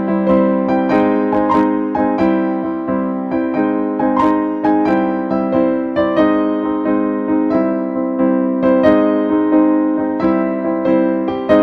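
Background music: a keyboard melody of struck notes over held low chords.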